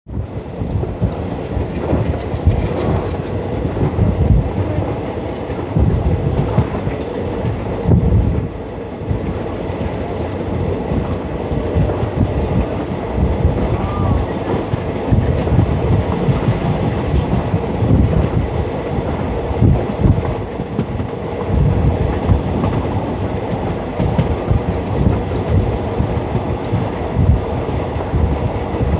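Indian Railways passenger train running, heard from inside a coach: a steady loud rumble of wheels on track, with repeated low thumps as the wheels cross rail joints.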